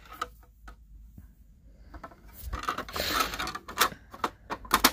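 Toy pieces being handled: scattered light clicks and taps with some rubbing, sparse at first and busier from about halfway, with a sharper click near the end.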